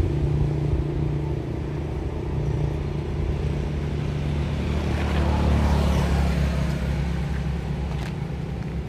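A motor engine running steadily with a low hum, growing louder about five to six seconds in, then easing off.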